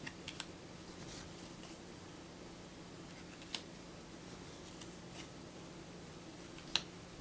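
Thin paper game cards being handled and moved on a stack: a few sharp card snaps and taps, a quick cluster at the start and two single ones later, over a steady low hum.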